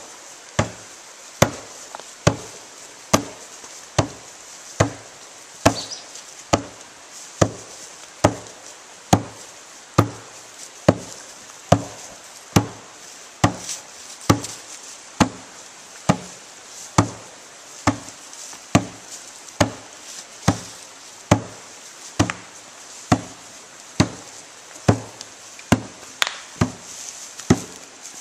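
Log drum beaten by hand in a slow, steady beat, a little more than one deep stroke a second.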